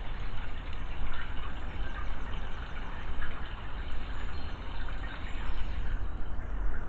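Steady trickle of running spring water over a low rumble, with a few faint bird chirps about three seconds in.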